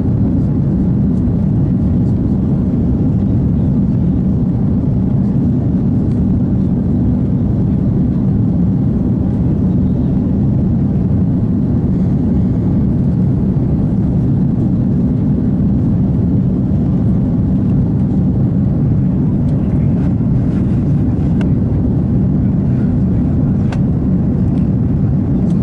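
Airbus A330-300 airliner's jet engines and airflow heard from inside the cabin, a steady low drone at climb power shortly after takeoff.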